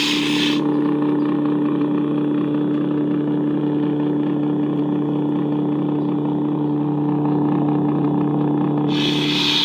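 Lightsaber replica's Nano Biscotti V3 sound board playing a steady low blade hum through its speaker, just after the ignition sound, then the deactivation (retraction) sound about nine seconds in, after which the hum cuts off.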